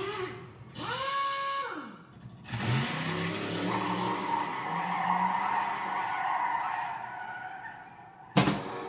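Stern Mustang pinball machine's speaker playing car sound effects: a car revving up, holding and dropping back about a second in, then a long tire screech. A sharp knock comes near the end.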